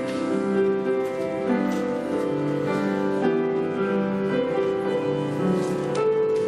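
Instrumental introduction to a hymn of invitation: a keyboard playing slow, held chords that change about once a second.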